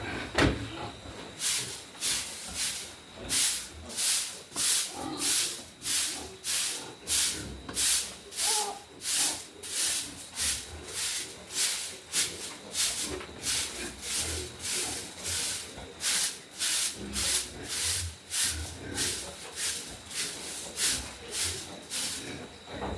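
A broom sweeping out a pig pen floor in steady back-and-forth strokes, about two a second, each a short scratchy swish. The sweeping starts about a second and a half in and stops just before the end.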